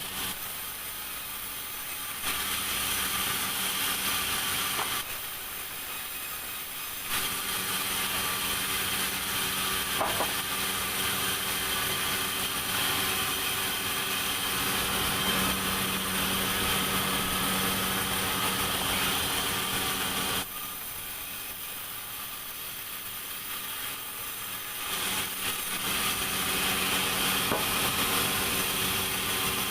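Sawmill saw running and cutting timber: a steady machine drone that alternates between louder stretches of several seconds and quieter lulls.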